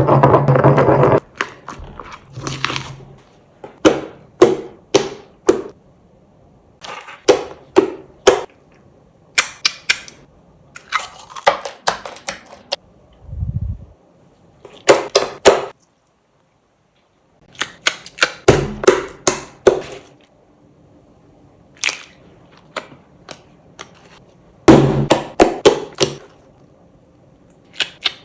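Slime being crushed and squeezed, crackling and popping in clusters of sharp snaps separated by short pauses, with a brief silent gap a little past halfway.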